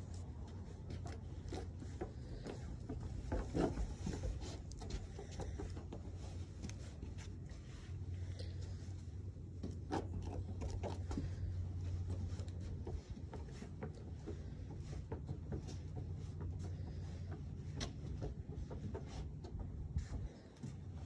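Pygmy goat's hooves and a child's shoes tapping and scuffing on wooden deck boards as the goat is walked and set up on a lead: scattered irregular clicks and knocks over a steady low rumble.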